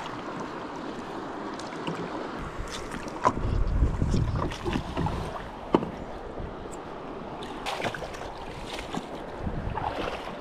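Water splashing around a paddleboard on a river, with wind buffeting the microphone and two sharp knocks, one about three seconds in and a louder one near the middle.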